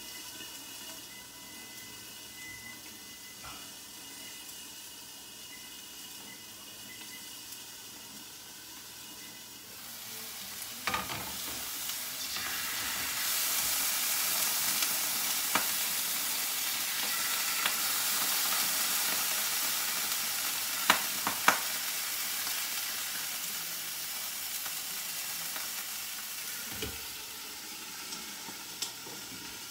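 Chicken frying in a little oil in a lidded pan, sizzling steadily; the sizzle grows louder about ten seconds in. A few sharp clicks are heard.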